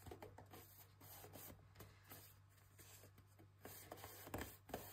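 Faint rubbing and small taps of fingers pressing a glued paper tab against a cardboard box divider, with a couple of louder clicks near the end, over a low steady hum.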